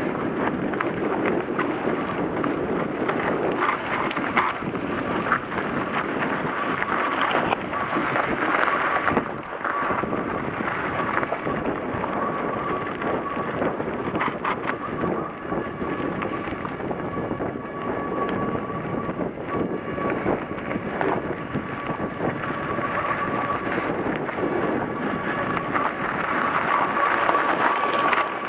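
Wind buffeting the microphone of a rider's camera on a mountain bike, over the crunch and rattle of tyres on a gravel trail, with many small clicks and knocks as the bike rides over bumps. A thin steady whine runs through most of it.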